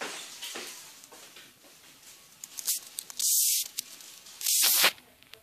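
Two short, loud hissing bursts about a second apart, each lasting about half a second, over faint rustling.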